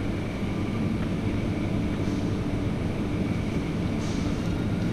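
Steady low mechanical hum of supermarket refrigerated display cases and air conditioning, with a faint steady high tone above it.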